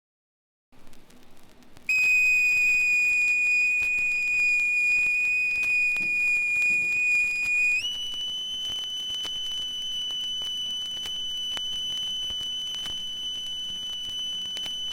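A steady, high, whistle-like tone starts about two seconds in over faint record crackle. Partway through it jumps up to a higher pitch and becomes softer, then holds steady.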